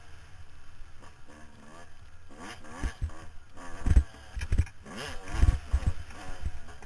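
Dirt bike engine revving up and down as it is ridden hard over hills and jumps on a motocross track, with heavy low thuds from the rough ground and wind on the microphone, loudest in the second half.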